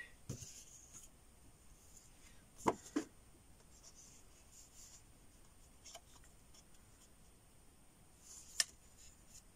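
Sheets of card stock being picked up and handled: faint paper rustling, two light knocks about three seconds in, and a sharp tap near the end.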